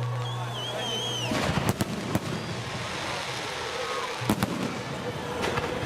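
Fireworks salute going off: sharp bangs of bursting shells, a cluster of three or four from about a second and a half to two seconds in, then a pair just past four seconds and one more near the end.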